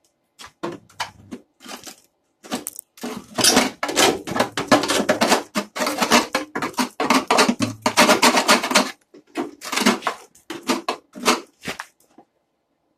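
Rapid scraping and clattering of a tool against the sheet metal of a truck's cowl vent box, as packed, rotted leaves and dirt are dug out. It comes in quick strokes, busiest from about three to nine seconds in.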